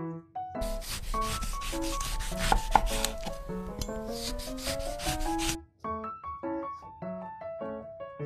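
Rapid rhythmic scratching of a paper cleaver cutout scraped over paper, about five strokes a second. It starts about half a second in and cuts off abruptly about five and a half seconds in, over light piano music.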